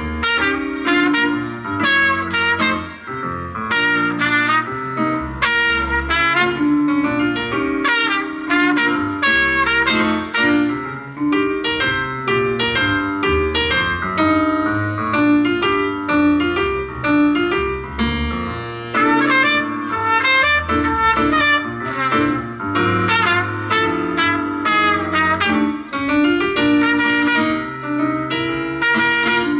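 Jazz music playing with a steady beat.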